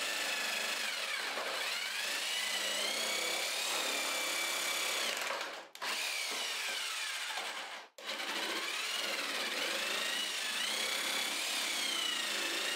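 Craftsman cordless jigsaw cutting a wooden spoon blank, its motor whine wavering in pitch as the blade takes the load. It stops briefly twice, about six and eight seconds in, then carries on cutting.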